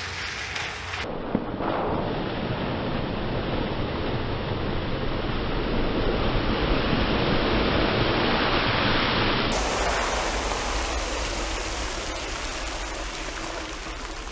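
Water splashing and rushing as a 60-series Toyota Land Cruiser fords a flooded creek crossing. The wash builds to its loudest about six to nine seconds in and then eases off, with a brief knock about a second and a half in.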